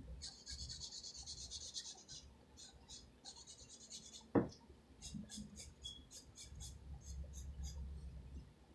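Pencil scratching on paper while shading: long strokes at first, then many quick short strokes in the second half. A single dull knock sounds about four seconds in.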